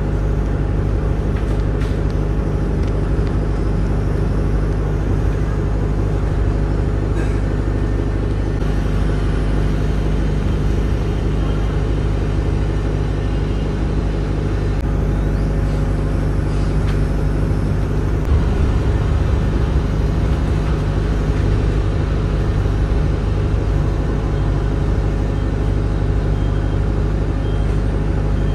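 Steady engine hum and road noise heard inside a moving city bus.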